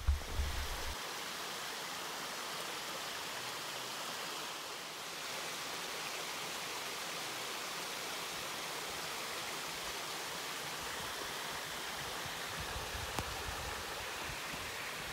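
Shallow creek water spilling over the concrete apron of a low-water bridge: a steady rushing of water.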